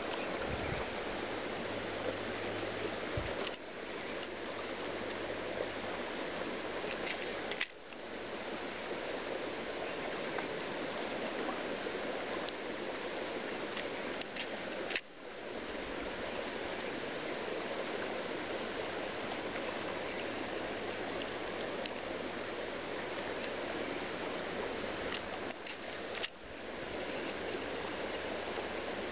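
Steady rush of surf and moving sea water, briefly dipping in level about four times.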